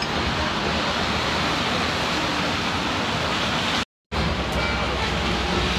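Steady hiss of falling rain, even and unbroken, cut by a brief dropout to silence about four seconds in.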